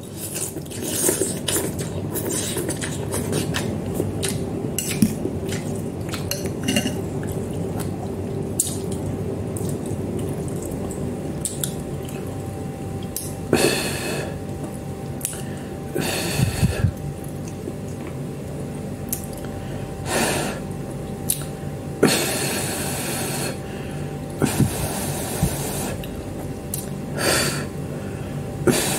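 A person eating instant noodles: repeated slurps of about a second each, with chewing and small clicks of a fork against the bowl in between, over a steady background hum.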